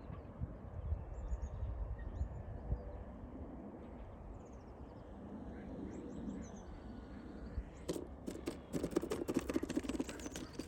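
Wind rumbling on the microphone, with small birds chirping now and then. About eight seconds in, a quick run of knocks and rustles starts and continues to the end.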